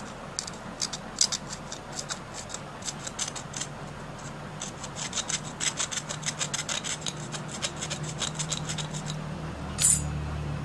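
A flat metal blade scraping the rubber end of a laser printer's pressure roller in quick, repeated strokes, cleaning off damaged rubber. One louder scrape comes near the end.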